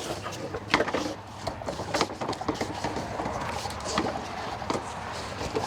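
Scattered knocks, clicks and rattles of a carpet-cleaning hose and its fittings being handled and wrapped up, over a steady low hum.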